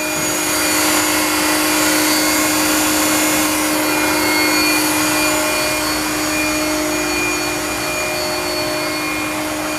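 Steady whir of running machinery: a constant rushing noise with a steady hum and a faint high whine, slightly louder after the first second.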